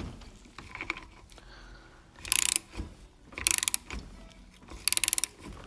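Socket ratchet wrench clicking in quick strokes, three loud bursts about a second apart in the second half, as the bolts holding the old engine mounts to their brackets are undone.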